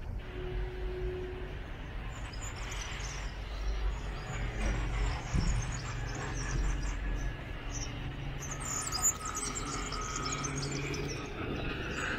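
Small birds chirping and twittering, busiest a little before the end, over a steady low rumble of traffic.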